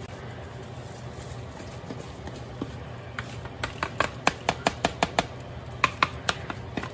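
Sharp plastic taps as an upturned plastic colander is knocked with a wooden spatula to shake the last wet rice into a steel pot: a quick run of about four or five taps a second starting about halfway in, then a few more near the end, over a steady low hum.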